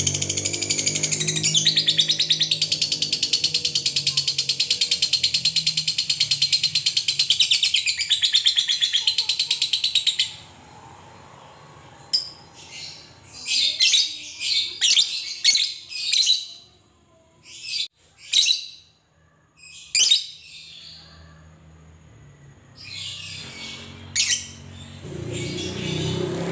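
Fischer's lovebird giving its long "ngekek" chatter: a very rapid, high, continuous stream of notes for about ten seconds, then after a brief pause short separate bursts of chirps, with the chatter building again near the end.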